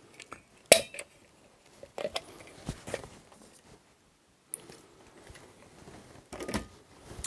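A few sharp clicks and knocks of small hand tools being handled and set down on the workbench, the loudest about a second in, with a soft rustle between them.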